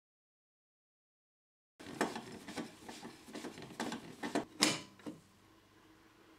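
Complete silence for almost two seconds, then a run of light metallic clicks and scrapes as an earth clamp's metal strap is fed and fitted around a copper pipe, with one louder scrape just past the middle.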